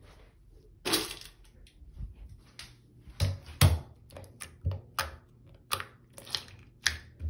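Glitter slime being squeezed and pressed by hand, giving a string of sharp, irregular sticky pops and clicks.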